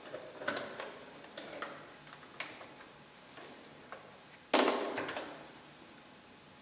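Black fabric being handled and shifted at a sewing machine: scattered light clicks and taps, and a sudden rustle about four and a half seconds in that fades over about a second.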